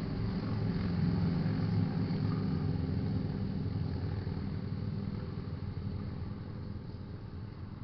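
A motor vehicle's engine running, a low rumble with a steady hum that fades gradually over the last few seconds as it moves away.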